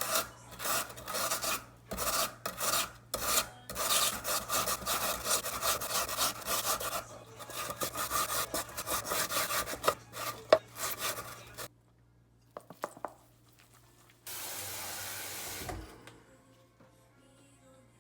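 Potato being grated on a hand grater: quick rasping strokes, about two or three a second, which stop about two-thirds of the way through. A short steady rushing hiss follows near the end.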